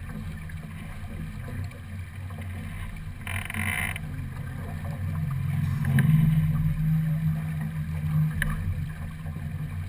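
A small racing keelboat under sail: steady low rumble of water along the hull and wind on the microphone. About three and a half seconds in there is a short hiss, and a couple of light clicks come later.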